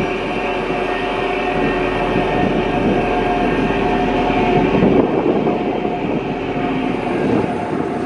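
Mitsubishi motor grader's diesel engine running steadily under load, a constant engine note over a heavy rumble, as the grader moves its blade through loose soil.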